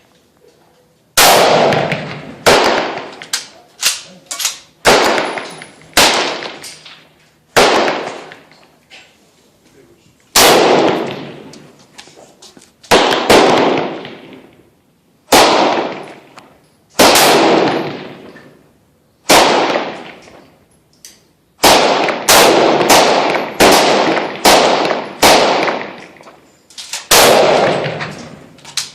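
Gunshots at a firing range: about two dozen single shots at irregular intervals, each followed by a long echoing tail, with several shots coming in quick succession in the later part.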